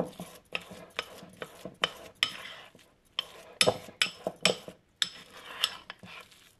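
A metal spoon stirring and mashing a thick, crumbly walnut-pulp mixture in a ceramic bowl. It clinks and scrapes against the bowl in an uneven run of strokes, about two or three a second.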